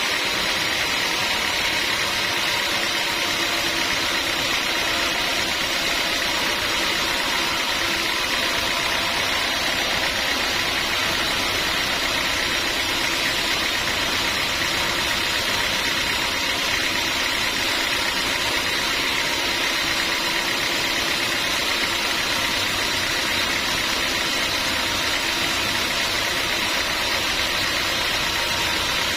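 Sawmill machinery running steadily, a constant mechanical noise that stays even in pitch and loudness without a break.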